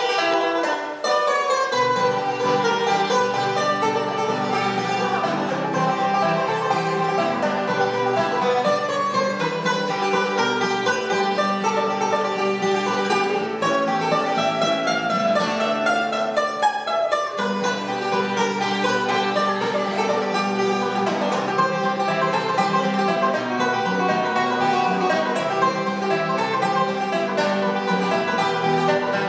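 Live bluegrass instrumental played on banjo and acoustic guitar, with the lower notes dropping out briefly about halfway through.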